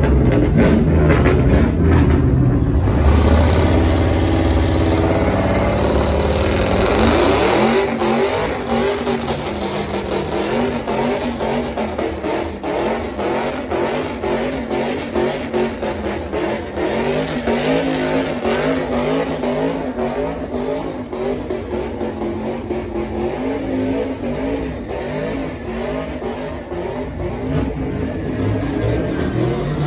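Car engine revving hard during a burnout, the pitch rising and falling over and over as the driver works the throttle. It is loudest for the first several seconds and then keeps up a repeated up-and-down revving.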